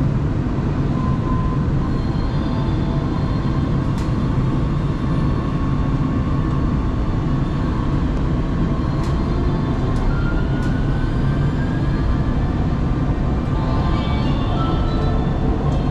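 Changzhou Metro Line 1 train running: a steady rumble of wheels on rails, with a faint thin whine that rises in pitch about ten seconds in.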